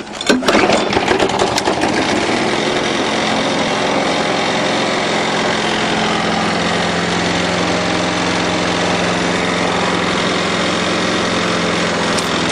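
Murray mower's 6 hp Briggs & Stratton single-cylinder flathead engine catching on the pull start with a few sharp strokes in the first second or two, then running steadily. Just after a valve job, it starts easily with good compression, no longer making the "chit chit chit" of poor compression.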